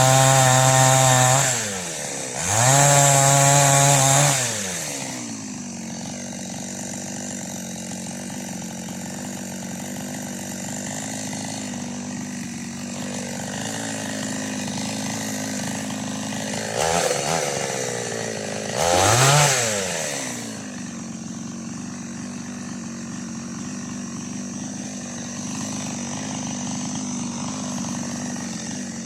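Preco two-stroke chainsaw idling, revved up hard twice near the start for about a second and a half each, then blipped twice more briefly about two-thirds of the way in, dropping back to a steady idle each time.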